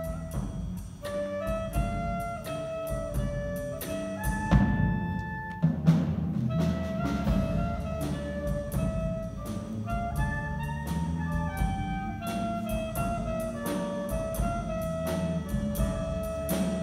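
Small jazz band playing live: saxophones, trumpet and trombone carry a melody in held notes over drum kit, keyboard and electric guitar.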